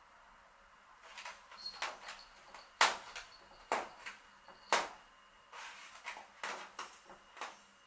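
Irregular light knocks and scuffs, about a dozen over six seconds; the sharpest three come about a second apart near the middle, the first of them the loudest.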